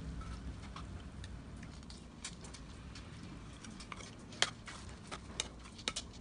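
A metal ladle clinking against an embossed metal bowl as soup is served into it: a few short sharp clinks, the loudest about four and a half seconds in, over a low steady background rumble.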